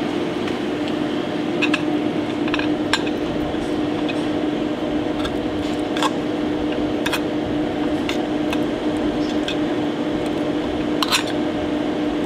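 A metal spoon clinking and scraping against a stainless-steel mixing bowl and a plated mould while beef tartare is scooped and pressed into shape: scattered light clinks over a steady hum.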